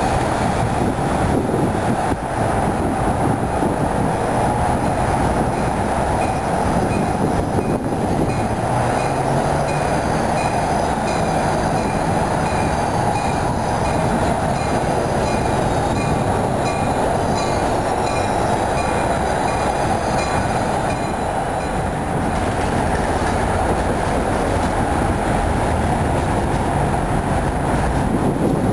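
Tri-Rail diesel commuter train rolling past, a steady rumble of wheels on rail. A faint high tone repeats about twice a second through the middle.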